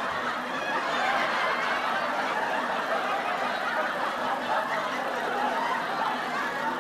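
Canned audience laughter from a laugh track: many people laughing together at an even level.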